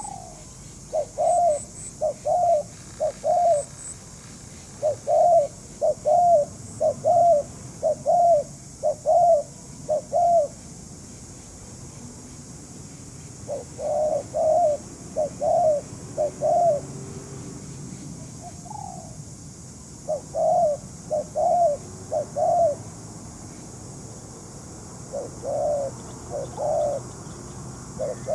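Spotted doves cooing: short, low coo notes about two a second, in runs of four to eight with pauses of a second or more between runs.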